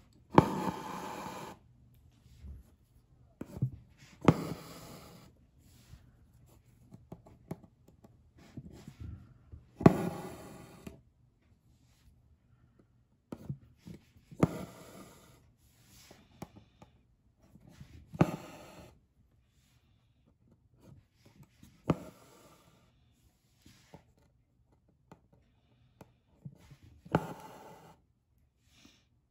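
Needle and embroidery thread being pulled through fabric stretched in a hoop: a sharp pop as the needle pierces, then a brief rasping draw of thread, repeated every few seconds.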